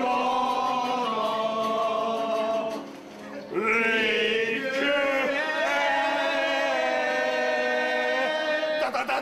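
Voices singing a melody together in long held notes, with a short break about three seconds in.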